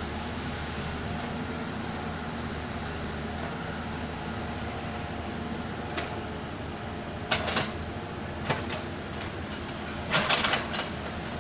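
Excavator engine running steadily, with a few sharp metallic clanks: one about six seconds in, a pair about a second later, another soon after, and a rattling cluster near the end.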